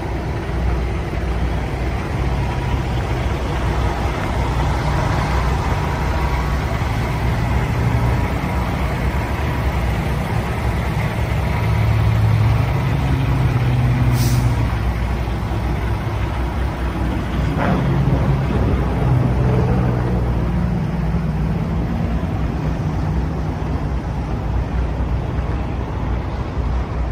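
Diesel engine of a Peterbilt 579 semi tractor idling steadily, with a short sharp hiss of air about halfway through.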